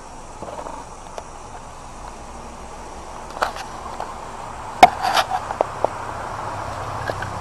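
A few sharp clicks and knocks in a cluster about halfway through, the loudest near the middle, over a steady high insect drone.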